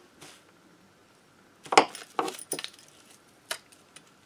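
Small metal cylinder-head nuts clinking against each other and the parts as they are handled: a few sharp clinks, the loudest about two seconds in.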